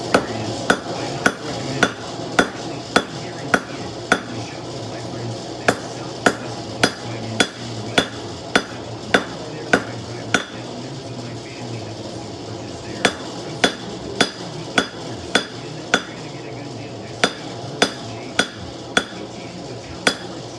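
Hand hammer striking red-hot knife steel on a post anvil, forging a blade, about two blows a second. Each blow gives a sharp clang with a short ring, in steady runs with a pause of a couple of seconds near the middle.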